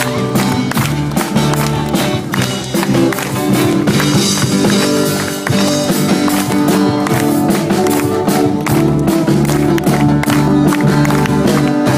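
A live band playing: a drum kit keeps a steady beat under electric guitars, loud through the stage sound system.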